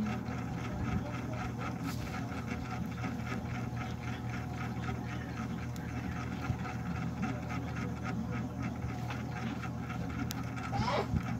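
Steady low mechanical hum, like a small motor running, with a fast even flutter; a short squeak near the end.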